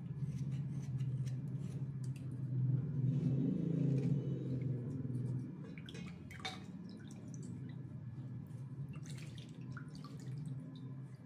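A serrated knife scraping a wet black slate block, then, about halfway through, hands swishing and rubbing in a steel plate of water, with scattered light clicks and drips. A low steady hum runs underneath, louder in the first half.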